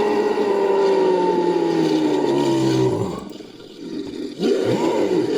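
A made-up creature roar built from big-cat roars: one long call that falls slowly in pitch and stops about three seconds in. A second roar starts about a second and a half later.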